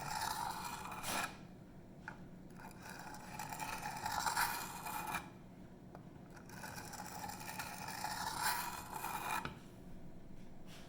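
Steel knife blade (154CM) scraping on a wet coarse whetstone, stroke after stroke, in three long runs with short pauses between them. The edge is being ground until a burr forms.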